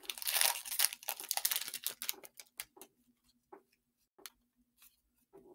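Foil wrapper of a Pokémon TCG booster pack crinkling as it is opened and crumpled, dense for about two seconds, then a few light taps and clicks as the cards are handled.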